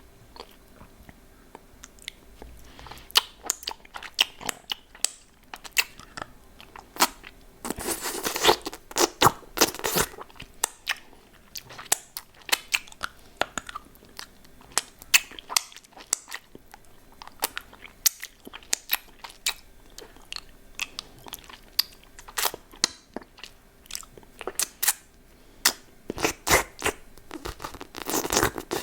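Hard candy lollipop being bitten and crunched close up, with sharp cracks scattered throughout and denser spells of crunching about eight seconds in and again near the end.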